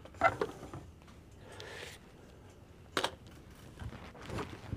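Three sharp metallic clicks with light rattling between them, from a bolt-action .22 WMR rifle and its magazine and cartridges being handled while it is loaded.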